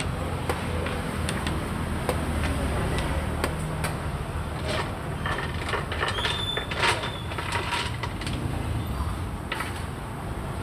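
Steady low background rumble with scattered sharp clicks of xiangqi pieces being set down on a wooden board, and a brief high tone about six seconds in.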